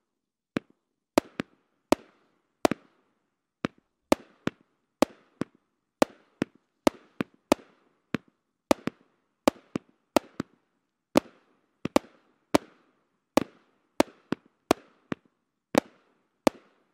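Platinum Willows firework cake firing its shots: a rapid, irregular string of sharp bangs, roughly two a second, each trailing off in a short echo.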